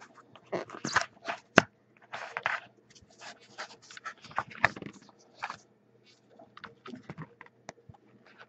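Fingers and thick trading cards scraping and rubbing against a tin box as a tight stack of cards is worked loose and pried out: a run of short scrapes, rustles and sharp clicks, busiest in the first five seconds and thinning out toward the end.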